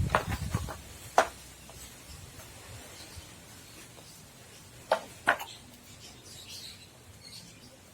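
A few sharp knocks and clicks of objects being handled: a short low rumble at the start, one knock about a second in, and two more in quick succession around five seconds in.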